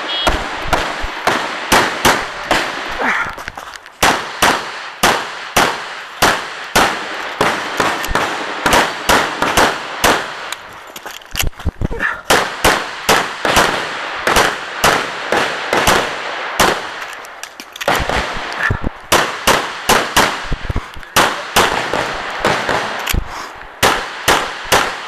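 Rapid pistol fire from a .45 ACP 1911 single-stack pistol shooting a practical-shooting stage, the shots mostly in quick pairs with a few short gaps between strings. A brief shot-timer beep sounds at the very start.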